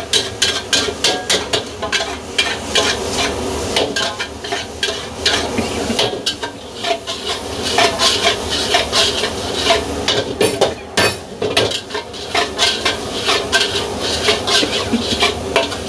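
Metal wok spatula scraping and clattering against a steel wok over and over, about four strokes a second, as noodles are stir-fried on high flame. A steady sizzle runs beneath the strokes.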